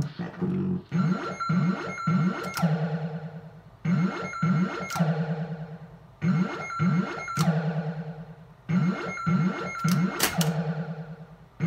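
Bally Flash Gordon pinball machine's stock Squawk & Talk sound board playing its synthesized alarm background of gliding and steady electronic tones. The pattern repeats about every two and a half seconds and drops out briefly each time, showing the stock board cutting the background whenever another sound plays.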